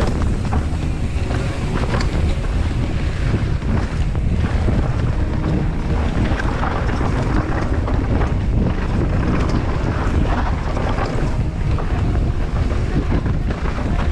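Heavy wind buffeting the microphone of a camera riding on a mountain bike as it descends a trail, with a steady low rumble and scattered rattles and clicks from the bike over rough ground.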